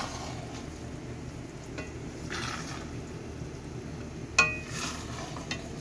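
Spatula stirring and folding pasta and vegetables in a creamy sauce in a stainless steel pan, over a soft steady sizzle. About four and a half seconds in the spatula clinks sharply against the pan.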